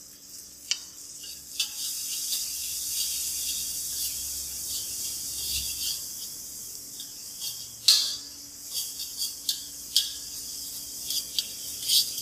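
Garlic, peppers and tomato sizzling in hot oil in a large frying pan, a steady high hiss, while a utensil stirs and scrapes them, knocking sharply against the pan now and then, loudest about eight seconds in.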